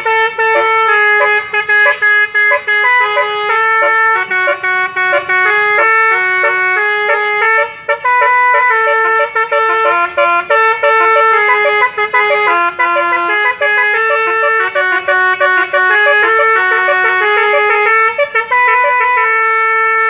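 A bus 'telolet' musical air horn plays a long melody of clear, stepping horn notes in the Basuri style, with a brief break about eight seconds in.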